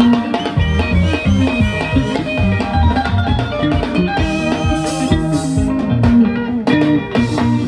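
Live sungura band playing an instrumental passage: electric bass guitar playing busy, quickly changing low notes over electric guitars and a drum kit.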